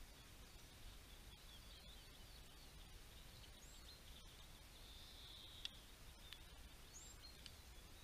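Faint twittering and short chirps from a flock of small songbirds feeding at a seed feeder, with one sharp click a little past halfway.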